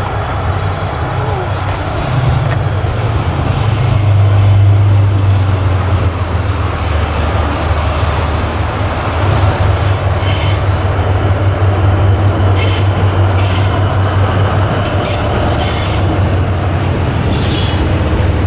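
Seven Stars in Kyushu train running by, its DF200 diesel-electric locomotive's engine drone loudest about four to five seconds in. The train keeps rolling, and the wheels give several brief high squeals in the second half.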